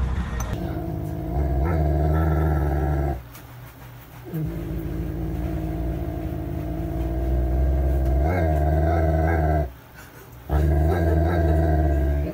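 Golden retriever growling in three long, steady, low growls with short pauses for breath about three and ten seconds in; the middle growl is the longest.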